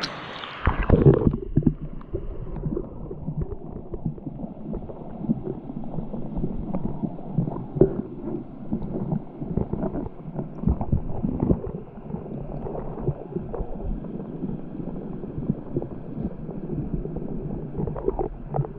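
Flowing stream water heard underwater: a loud burst of churning water about a second in, then a muffled low rumble with irregular gurgles and knocks of bubbles and moving water.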